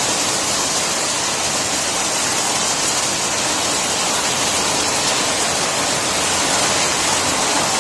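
Heavy rain falling in a storm: a steady, loud hiss of rain pouring down.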